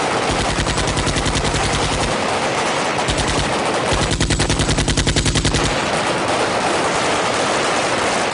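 Many automatic rifles and machine guns firing into the air in celebration at the same time, a dense, unbroken stream of overlapping gunfire. Long bursts of rapid, evenly spaced shots stand out in the first two seconds and again around the middle.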